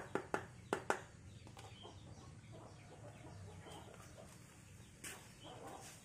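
A stick knocking against a small bowl as fibreglass resin is stirred: a quick run of sharp taps, about four a second, that stops about a second in.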